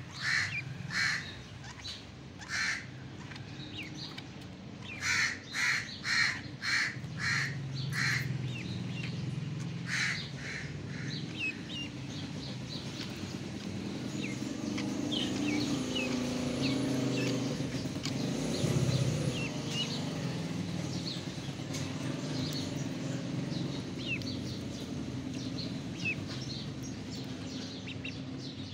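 Ducklings peeping with short high chirps, under a run of about ten loud harsh calls from a bird in the first ten seconds. A low hum swells in the middle.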